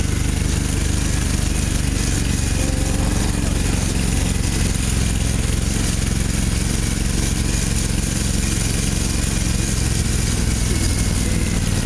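A combustion engine running at a steady, even speed.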